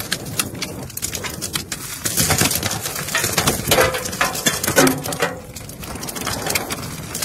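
An iron bar knocking and scraping against a broken rock face, with loose stone crumbling and clattering down in many short knocks. A few low cooing calls come a little past the middle.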